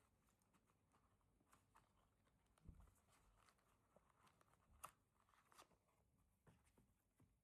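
Near silence, broken by a few faint, scattered clicks and a soft thump, as of packaging being handled during an unboxing.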